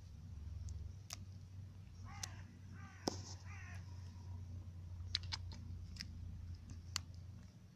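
Greek tortoise biting into a leaf held out by hand: sharp crisp clicks of its beak snapping and tearing the leaf, several times. A bird calls three times between about two and four seconds in.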